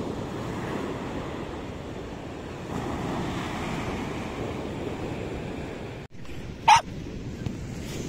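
Sea waves breaking and washing up a sandy beach in a steady surf. About six seconds in the sound breaks off for an instant, then a small dog gives a single short, sharp bark, the loudest sound here.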